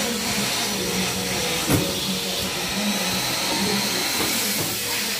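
Nissan Navara D40 pickup tailgate being swung up and shut by hand, latching with one sharp clack a little under two seconds in, over a steady background hiss.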